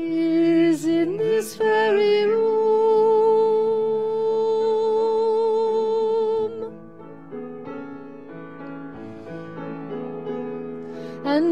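A woman singing a slow gospel song with piano accompaniment: a long held note with vibrato for about five seconds, then softer piano before the voice comes back in near the end.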